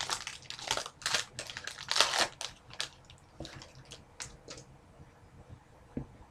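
Trading-card pack wrapper crinkling as it is opened, a quick run of short rustles that thins out after about four seconds. A single soft knock near the end.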